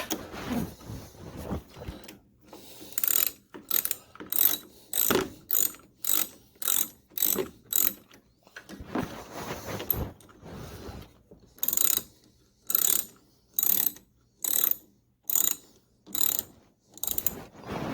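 Hand ratchet wrench turning a battery terminal bolt, clicking in quick back-and-forth strokes about two a second, in two runs with a short pause between.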